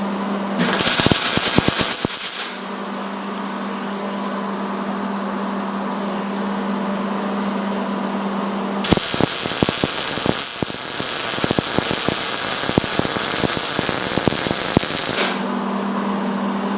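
Wire-feed (MIG) welder arc crackling on thick steel tubing, with the heat turned up and the wire speed being tuned. A short burst of about two seconds comes first, then a longer steady run of about six seconds starting about nine seconds in, the even crackle of a stable puddle with plenty of heat. A steady low hum runs between the two.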